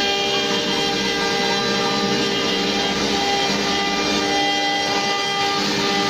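CNC wood router with a 2.2 kW water-cooled spindle, engraving a relief into a wooden panel. It gives a steady whine of several tones over the noise of the cutter in the wood, and some of the tones drop out and come back as the cutter moves.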